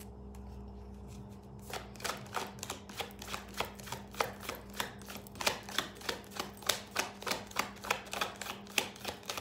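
Tarot deck being shuffled by hand, the cards tapping and slapping together in a steady rhythm of about three to four taps a second, starting about two seconds in.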